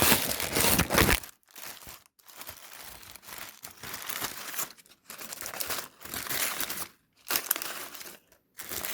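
Plastic packaging wrappers crinkling as a blind-box doll is unwrapped by hand. A loud burst comes in the first second or so, then shorter crinkles with brief pauses between them.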